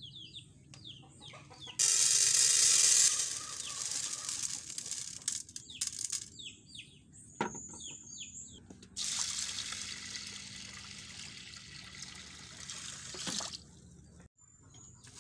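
Water splashing and sloshing in a cooking pot as mung beans are rinsed by hand, loudest in two stretches about two seconds in and again from about nine seconds. Small birds chirp in quick, falling notes between them.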